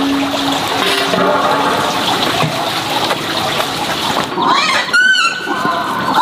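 A steady rushing hiss, then a run of high, rising-and-falling chirps from about four seconds in.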